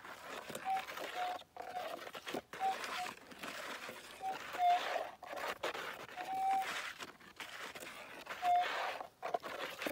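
Minelab gold detector's target tones: short beeps at one steady pitch, coming irregularly as the coil is swept over a buried gold nugget. One longer beep comes past the middle and louder ones near the end. A hiss comes and goes between the beeps.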